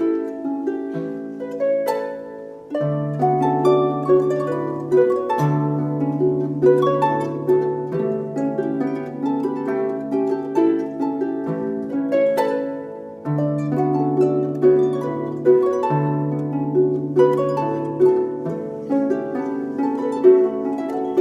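Background music: a melody of plucked-string notes over long held low notes.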